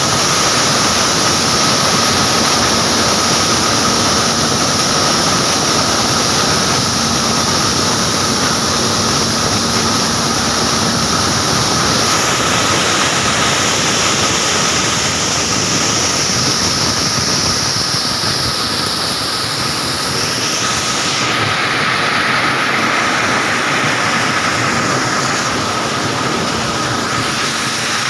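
Maize thresher running steadily at working speed, a dense mechanical clatter with a steady high whine through it, while shelled maize kernels pour from its outlet chute into a trailer.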